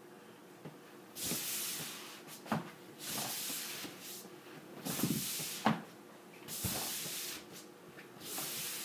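Feet gliding back and forth across a plastic slide board: a hissing swish about every second and a half, about five in all, with a sharp knock as a foot meets an end bumper and pushes off.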